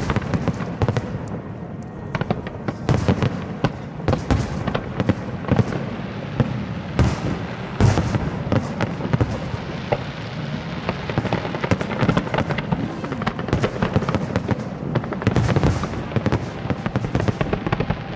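Aerial fireworks going off in quick succession: a dense, continuous run of bangs and crackling, with sharper, louder bursts around eight seconds in.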